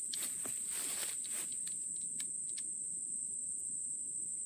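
Steady high-pitched insect chirring, crickets or similar, with a few light clicks and a short rustle in the first second and a half from handling the flintlock pistol.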